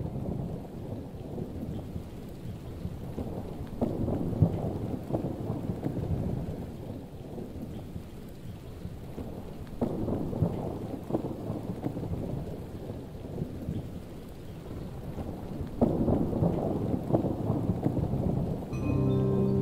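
Thunderstorm: rain with rolling thunder that swells three times, about four, ten and sixteen seconds in.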